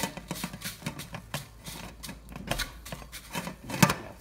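Dried red chillies being dry-roasted and stirred in an aluminium wok: an irregular run of clicks and scrapes against the metal, with a louder knock near the end.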